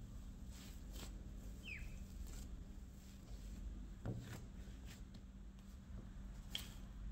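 Quiet handling sounds of bread dough being tucked and shaped by hand on a wooden board, with a dull thump about four seconds in as the dough ball is set down. Near the end a metal bench scraper cuts down through the dough and clicks against the board. A faint steady hum underneath.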